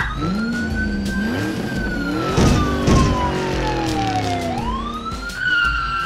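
Police siren sound effect wailing: a quick rise, then a long slow fall and a rise again near the end, over a running car engine sound effect. Two short noisy bursts come about two and a half and three seconds in.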